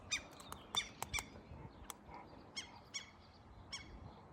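Gulls calling near their chicks: a scattered run of short, sharp calls, several in quick succession in the first second and a few more after a pause.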